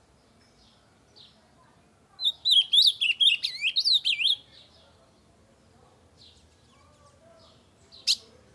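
Ultramarine grosbeak (azulão) singing one loud, fast warbled phrase of about two seconds, starting a couple of seconds in. Faint chips come before and after the phrase, and one short sharp call comes near the end.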